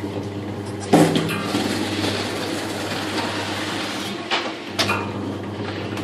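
Steady low mechanical hum, with a loud sharp knock about a second in and two more sharp knocks between four and five seconds.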